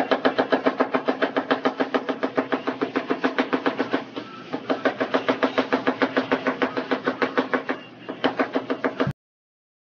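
Chef's knife chopping an onion very fast on a wooden cutting board: a rapid, even run of knocks, about nine a second, with two short breaks. The chopping stops abruptly near the end.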